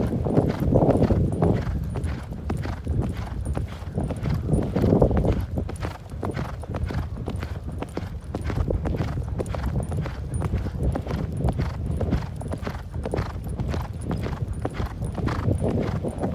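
A ridden horse's hooves clip-clopping in a steady, continuous rhythm. There are a couple of louder swells of sound, about a second in and again about five seconds in.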